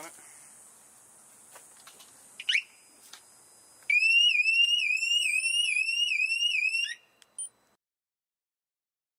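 Hexis UTV security alarm siren sounding for about three seconds as a rapid run of rising electronic sweeps, about three a second. A short chirp comes before it and a single short beep follows.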